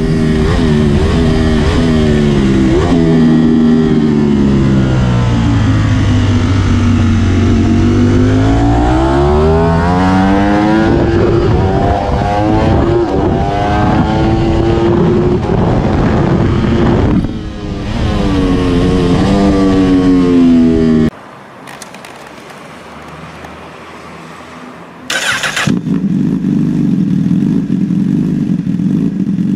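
Ducati Panigale V4 Speciale's V4 engine heard from on board at speed, its pitch sinking and climbing through gear changes. After a sudden cut and a few quieter seconds, a Honda sportbike idles steadily.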